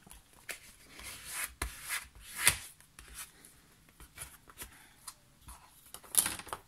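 Hands pressing and rubbing paper down onto a freshly glued page of a paper mini album, with soft paper rustles and two louder scrapes, one about two and a half seconds in and one near the end.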